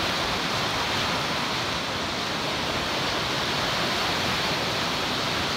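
Lake Huron surf breaking on a sandy beach: a steady, loud wash of crashing waves.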